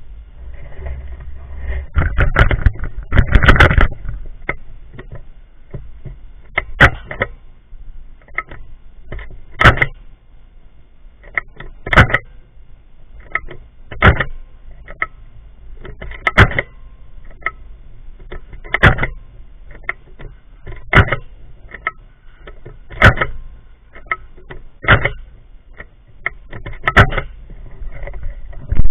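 Novritsch SSX 303 bolt-action airsoft sniper rifle firing repeatedly, a sharp crack about every two seconds, with smaller clicks of the bolt being worked between shots. A burst of rattling handling noise comes early.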